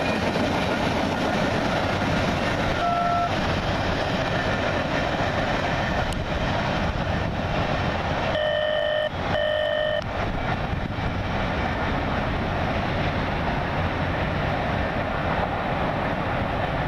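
Freight cars of a CSX steel train rolling past with a steady noise of wheels on rails as the end of the train moves off. A brief tone sounds about three seconds in, and two short beeps come about eight and a half and nine and a half seconds in.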